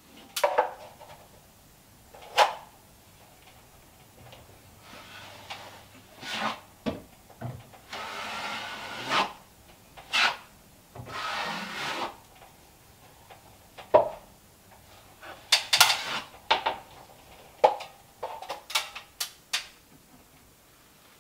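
A hand tool scraping and rubbing on drywall during a touch-up of joint compound: irregular short strokes and sharp scrapes, with two longer rubbing strokes of about a second each midway through.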